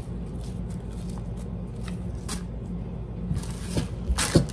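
Quiet handling of roasted poblano peppers being peeled by hand in a ceramic bowl, with a few soft ticks. A plastic bag rustles near the end, all over a steady low hum.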